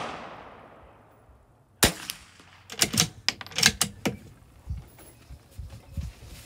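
The echo of a .22 LR bolt-action rifle shot fades out over the first second. About two seconds in comes a single sharp crack, then a quick cluster of sharp cracks and clicks.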